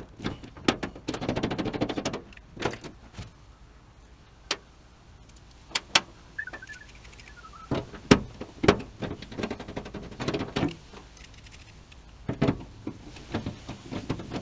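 Hand-work noises from fitting a gear shifter: scattered metallic clicks and knocks, with a dense rattling stretch about a second in and again at the very end.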